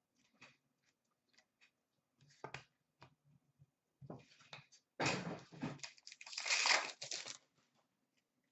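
A few light clicks and taps of cards being handled, then about five seconds in two spells of loud crinkling and tearing as a foil hockey-card pack wrapper is ripped open.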